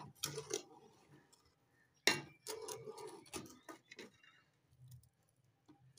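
Metal spoon clinking and scraping against the side of a metal cooking pot as thick milk is stirred, with a few sharp taps, the loudest about two seconds in.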